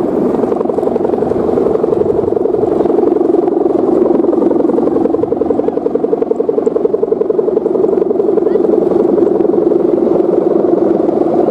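Kite hummer (sendaren): the taut ribbon on the bow fixed atop a large kite vibrating in the wind. It makes a loud, steady buzzing drone that wavers and pulses rapidly around the middle.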